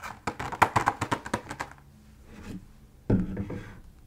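Rapid tapping and clicking of fingers on a set of lip gloss tubes and their packaging, as ASMR trigger sounds. A quieter pause follows, then one heavier knock about three seconds in.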